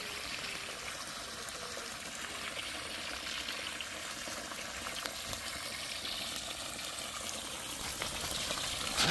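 A steady stream of water running into a large plastic basin of wild chives (dallae) to rinse them: an even, unbroken rushing of water.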